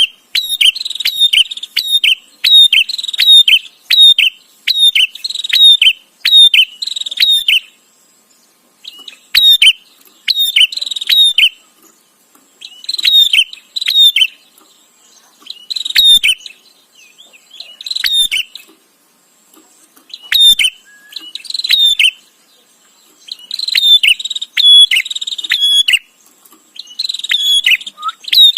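Prenjak (prinia) calling: rapid bursts of sharp, scratchy chirps, each burst lasting a second or two, with short pauses between them. A faint steady high whine runs beneath.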